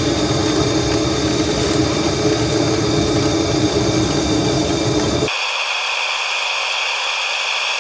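Gas blowtorch flame running steadily while a copper pipe joint is heated and solder is fed in. About five seconds in, the low part of the sound drops away abruptly, leaving a thinner, higher hiss.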